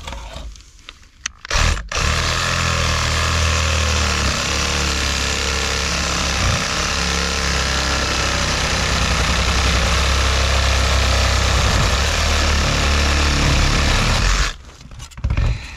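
Makita reciprocating saw cutting through a corroded iron heating vent pipe: a short blip of the trigger, then steady sawing for about twelve seconds that stops near the end.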